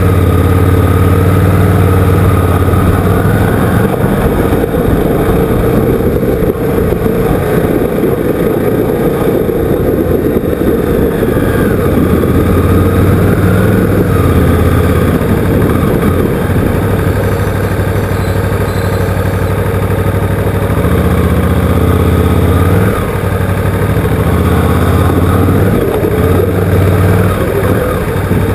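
KTM motorcycle engine running as the bike rides slowly along a gravel lane, its note shifting with the throttle, over a steady haze of tyre and wind noise.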